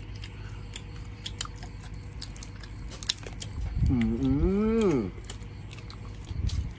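A man chewing and tearing grilled meat with his hands: scattered wet clicks and smacks over a steady low electrical hum. Midway comes a loud, drawn-out low call, about a second and a half long, that rises, dips, rises again and falls away.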